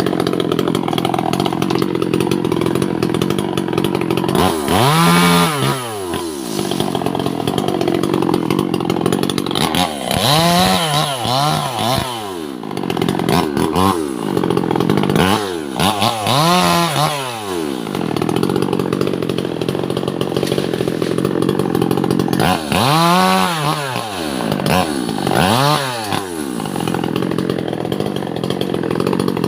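Two-stroke chainsaw running hard while sawing albasia (sengon) timber. Its engine note swings up and back down several times as the load in the cut changes.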